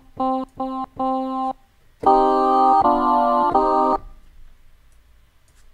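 Klevgrand Pipa vocal synthesizer, set to a group of synthesized voices, playing a note repeated in short stabs, then about two seconds in three sustained chords, stopping about four seconds in. The voices are being spread wider across the stereo field as they play.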